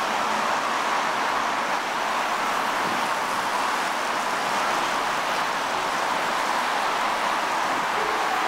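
Steady hiss of road traffic on a city street, an even wash of passing tyres and engines with no single vehicle standing out.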